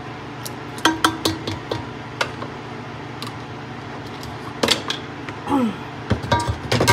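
Glass mason jars and kitchenware clinking and knocking as jars are filled, with a few sharp ringing strikes about a second in and a cluster near the end, over a steady low hum.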